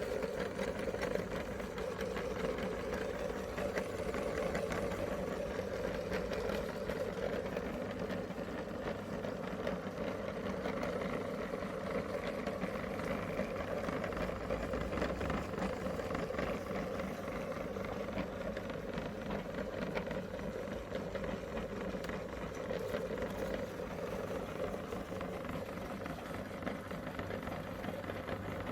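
Electric meat grinder running steadily, its motor humming, with small irregular crunching clicks as Oreo cookies and candy are ground through it.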